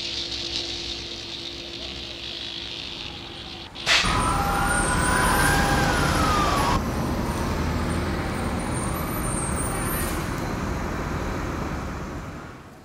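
City street traffic noise. About four seconds in it turns suddenly louder and an emergency vehicle siren wails, its pitch rising and falling slowly, before everything fades near the end.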